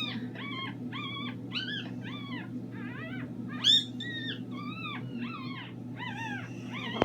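Newborn Yorkshire terrier puppies crying: a steady run of thin, high squeals, each rising then dropping in pitch, about two or three a second, with one much louder cry about halfway through.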